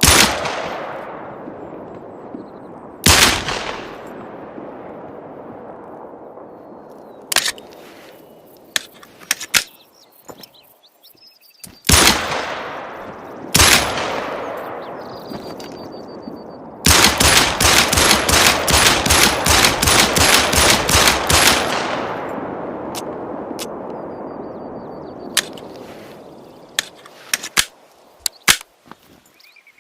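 10mm Glock pistol firing: single shots with long echoing tails, several seconds apart, then a rapid string of shots lasting about five seconds. Lighter clicks fall between the shots and near the end.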